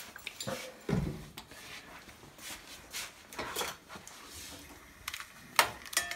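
Scattered knocks and clicks of handling at a gas stove, with a heavier thump about a second in. Near the end come sharp clicks as a long-reach lighter is brought to the burner under a cast iron skillet.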